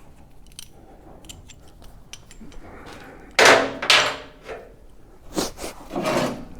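Metal hand tools being handled: a few light clicks, then several loud clanks from about halfway through, each with a short ringing tail.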